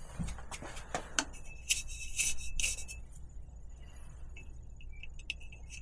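Light metallic clicks and scrapes as a rivnut is worked into a drilled hole in a bicycle frame. There are a few louder scrapes with a faint ring about two seconds in, then scattered faint ticks.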